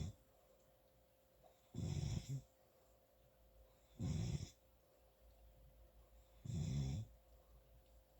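A sleeper snoring in short, regular snores about every two and a half seconds, each lasting well under a second with a quiet gap between: one trails off at the very start, then three more follow.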